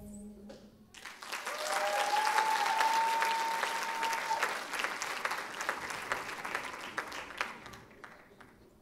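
Audience applauding and cheering as the dance music stops; the applause swells about a second in and fades away near the end. A single long whistle rises and holds for a couple of seconds within it.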